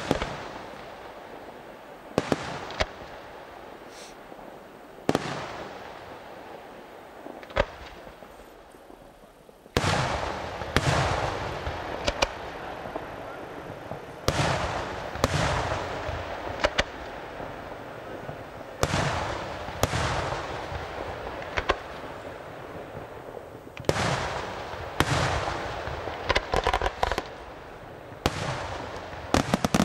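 Aerial firework shells bursting overhead, each bang trailing off in echo. There are a few scattered reports at first, then from about a third of the way in a dense barrage of loud bursts, with a quick run of sharp crackling cracks near the end.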